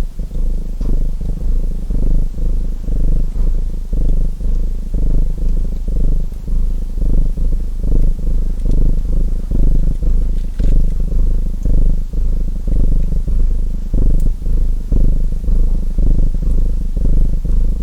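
Cat purring close up: a deep, steady rattle that swells and fades with each breath, about one to two pulses a second. A few faint crackles from a fireplace fire sound over it.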